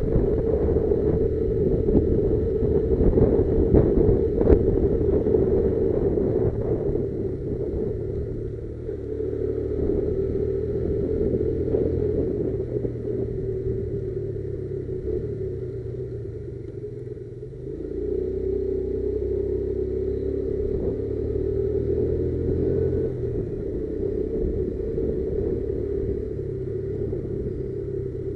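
Motorcycle engine running under way, its pitch shifting as it changes speed. The engine note drops off a little past the middle, then picks up and runs steadily again.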